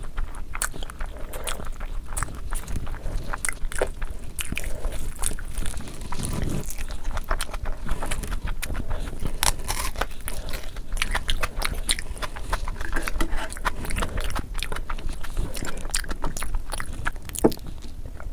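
Close-miked eating: chewing and biting with many quick, sharp mouth clicks and smacks, irregular and continuous.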